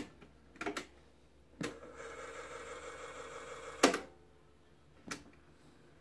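Cassette-deck piano-key buttons on a Universum CTR 2076 boombox clicking as they are pressed, several times. After one press the tape mechanism runs with a steady sound for about two seconds, then a loud clack of a key stops it.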